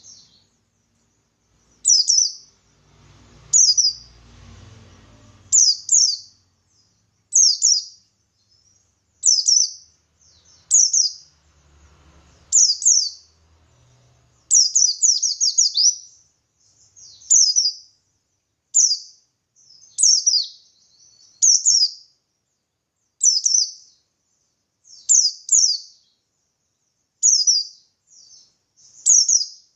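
White-eye (pleci buxtoni) singing short, high chirping phrases about every one and a half to two seconds, some given as quick runs of several notes. This is the wild-style 'ngalas' song.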